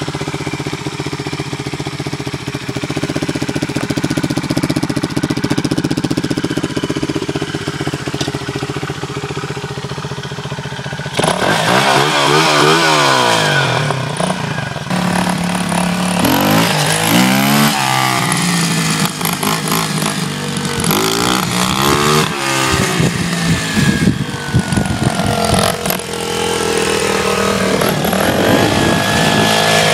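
Xtreme 125cc pit bike's single-cylinder four-stroke engine on its stock exhaust, idling steadily, then blipped up and down several times from about eleven seconds in. Near the end it pulls away, the revs rising and falling as it rides off.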